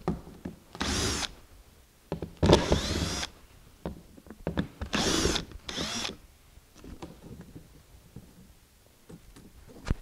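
Cordless drill-driver running in four short bursts, the second the longest, with the motor's pitch rising and falling on each, as it backs out the screws holding the rub strip on the kayak's hull.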